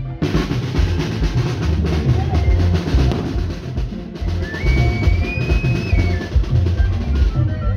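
Street band drums, a big bass drum and snare, beating a fast dance rhythm. Near the middle a single high note glides up, holds for about a second and a half, and drops away.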